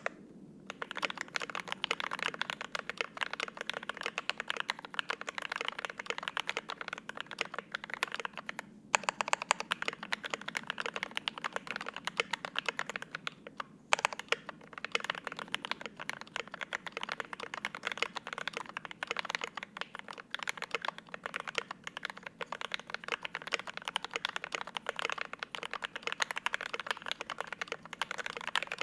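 Fast, continuous typing on a GMMK Pro 75% gasket-mount mechanical keyboard, built with lubed and filmed FFFF linear switches, a stock aluminium plate, stock foam and GMK double-shot ABS keycaps, with lubed Durock screw-in stabilizers on the long keys. The keystrokes start about half a second in and run on in a dense stream, with brief breaks about nine and fourteen seconds in.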